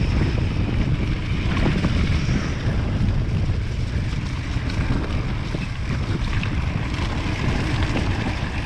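Steady wind rumble on the microphone with tyre noise and rattling clicks from a hardtail mountain bike riding a dirt singletrack.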